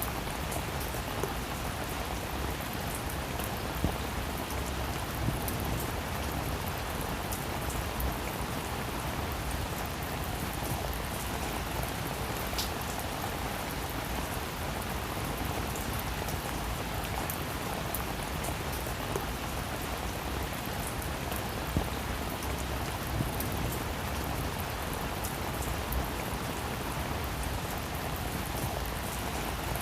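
Heavy rain falling steadily, a continuous hiss with individual drops pattering and a few louder drop hits here and there.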